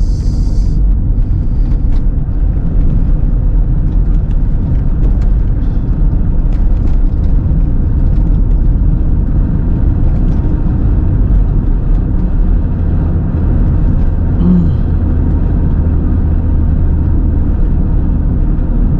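Steady low rumble of a car driving, with engine and tyre noise heard from inside the cabin and a few faint knocks.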